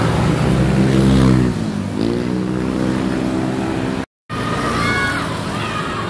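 A large bus passing close by, its engine note dipping and then rising steadily again about two seconds in as it pulls away. About four seconds in the sound cuts out for a moment, then children's voices are heard.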